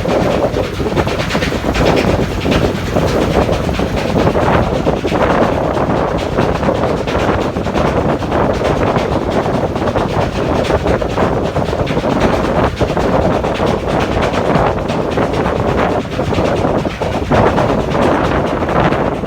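Passenger ferry rattling loudly and continuously: a dense, unbroken clatter of rapid knocks and rattles.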